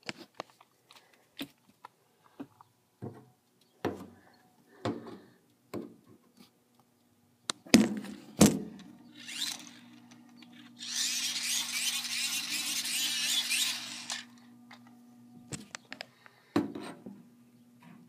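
Knocks and clicks around a central air-conditioning unit's casing, then two loud clunks about eight seconds in, followed by a steady low electrical hum that keeps going. A loud airy hiss rushes for about three seconds midway through the hum.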